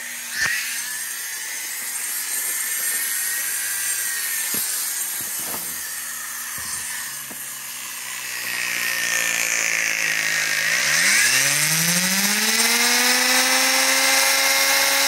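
Foredom SR flex shaft machine's motor whining as its speed is set on the controller dial. About ten seconds in, the pitch rises quickly and then holds at a higher speed. A few light knocks come in the first half.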